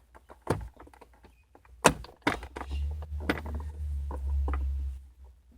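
Plastic car door trim panel and its retaining clips clicking and knocking as the panel is pried loose with a flathead screwdriver, with a sharp snap about two seconds in and a low rumble of handling in the second half.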